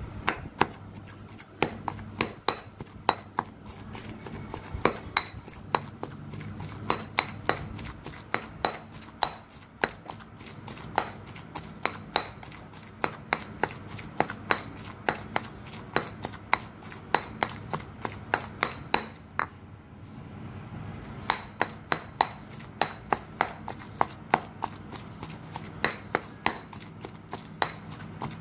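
Granite pestle pounding chili curry paste in a granite mortar: steady, evenly spaced strikes about two to three a second, each with a short stony clink, with a brief pause about two-thirds of the way through.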